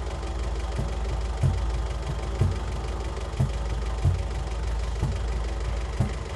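Background music: a steady deep bass drone with a low kick-drum thump about once a second.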